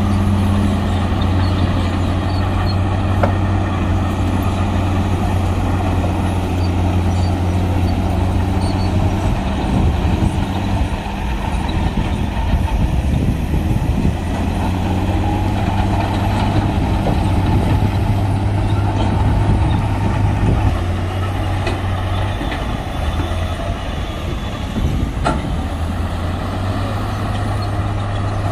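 Heavy diesel engine of a Shantui DH17C2 bulldozer running at a steady working speed while pushing soil. Its even hum breaks up and turns rougher twice, about a third of the way in and again near the end, with a few light clanks.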